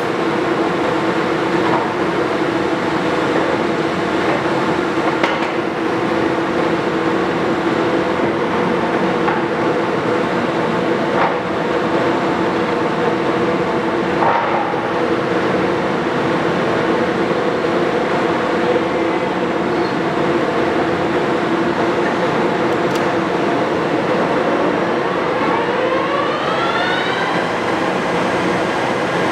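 Leblond 3220 heavy-duty engine lathe running under power with the spindle turning at 740 RPM: a steady hum and whine from the geared headstock and its 30 HP main drive motor. A rising whine comes in near the end.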